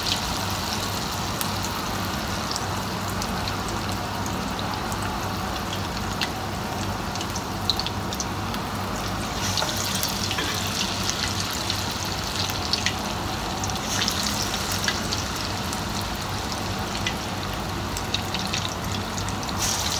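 Besan-batter vegetable pakora deep-frying in hot oil: a steady sizzle with scattered crackles. It swells louder about halfway through and again a few seconds later as fresh spoonfuls of batter go into the oil.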